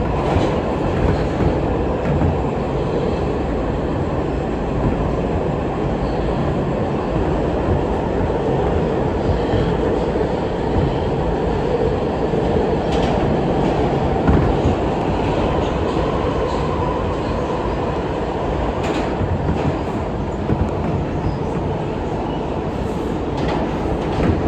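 R160B subway train running steadily between stations: a continuous rumble of wheels on rail, with an occasional sharp click from the track.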